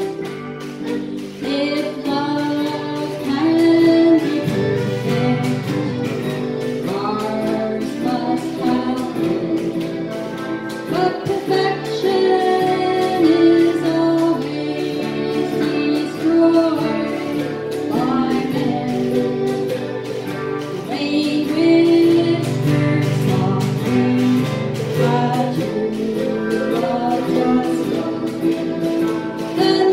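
A woman singing, accompanied by a strummed acoustic guitar.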